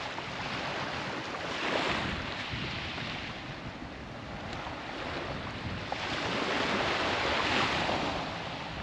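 Sea surf washing onto the beach, swelling about two seconds in and again more broadly from about six to eight seconds, with wind rumbling on the microphone.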